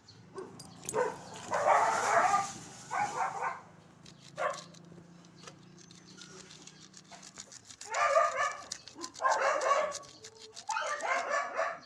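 A dog barking and whining in a run of calls, a gap of a few seconds in the middle, then several more.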